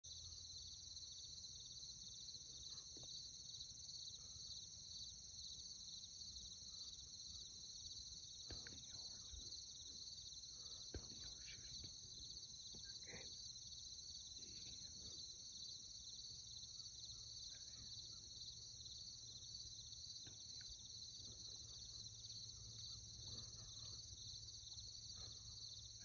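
Faint, steady chorus of field insects such as crickets: a high, finely pulsing trill that runs on without a break.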